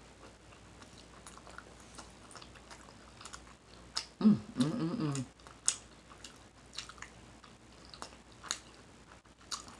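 Close-up mouth smacking and chewing of food: wet clicks at irregular intervals. About four seconds in comes a short, louder vocal sound from the eater's throat that wavers in pitch.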